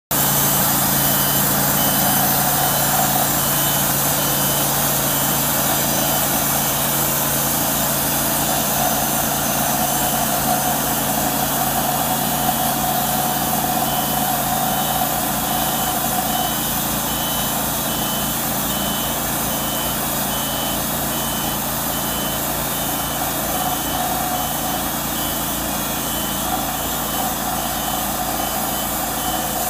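Wood-Mizer LT40 Super portable bandsaw mill running steadily under load, its engine and band blade sawing lengthwise through a redwood cant. A faint, high, evenly pulsed beeping runs underneath.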